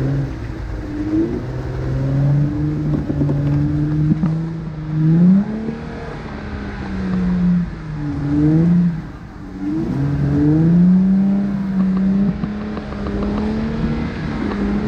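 Jeep engine revving up and down several times as it tries to crawl up a trail obstacle, its pitch climbing and dropping back every few seconds.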